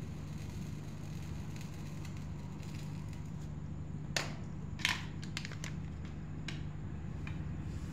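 A steady low hum, with a handful of sharp clicks clustered about four to five and a half seconds in and one more a second later.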